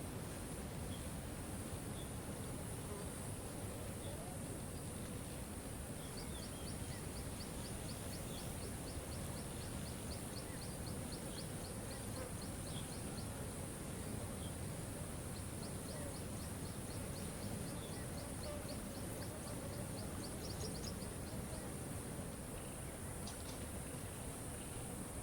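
Steady rushing of a waterfall, with scattered short bird chirps over it. Twice, for several seconds at a time, a rapid high ticking series runs at about four ticks a second.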